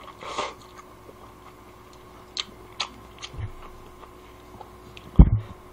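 A man slurping noodles from a bowl held to his mouth, then a few light clicks as he chews. A loud, low thump about five seconds in is the loudest sound.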